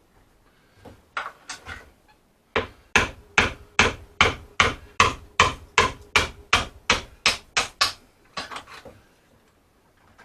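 Hammer blows: a few separate knocks, then a steady run of about eighteen sharp strikes at about three a second, easing into a few softer knocks near the end.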